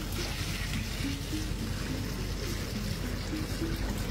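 Water pouring steadily from a metal pot into a plastic bucket, splashing onto soil and then into the rising water. A simple tune of short notes plays faintly underneath.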